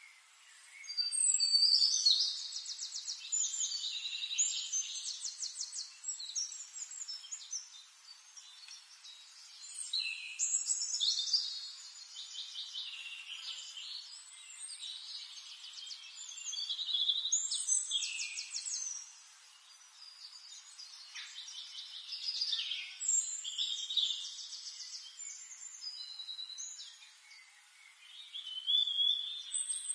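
A songbird singing, high-pitched: about five long songs of fast trills and whistles, each a few seconds long, with short pauses between them.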